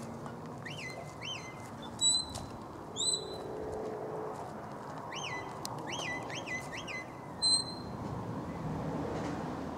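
A shepherd's whistle giving herding commands to a border collie: three sharp, high blasts about two, three and seven and a half seconds in, the second sliding up into its note. Between the blasts come runs of short rising chirps.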